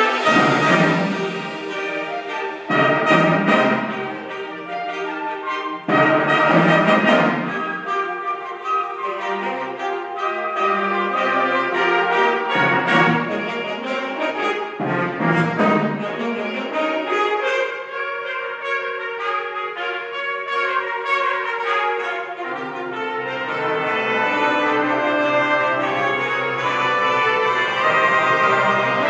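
A high school band playing a brass-led piece: loud, accented full-band chords every few seconds at first, then softer moving lines, with low brass coming in under sustained chords in the last third.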